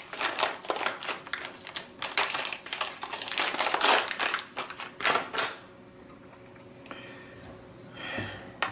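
Anti-static shielding bag crinkling and crackling as it is opened and a small handheld oscilloscope is slid out of it; the crinkling stops about five and a half seconds in.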